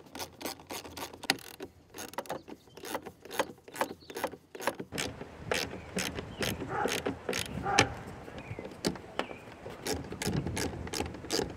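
Yakima snaparound clamps and bolt hardware being fitted around a round roof crossbar: a dense, irregular run of sharp clicks and clacks, about two to four a second, with a few short squeaks in the middle.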